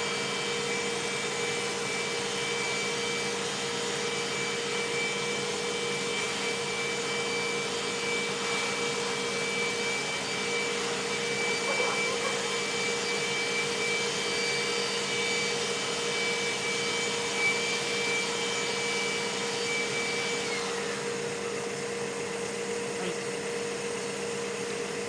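Portable electric ventilation blower with a yellow flexible duct running steadily with a motor hum and high whine. About 20 seconds in, the highest whine falls away as one motor spins down, while the steady hum carries on.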